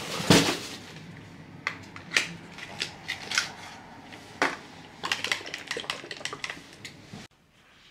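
Sharp clicks, taps and crinkles from skincare products and their packaging being unpacked and handled, over a low steady hum. It all stops abruptly near the end.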